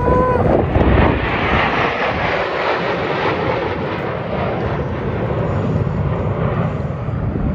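Jet engines of a six-jet fighter formation flying past low over the airfield: a loud, steady rushing noise. A short pitched tone sounds at the very start.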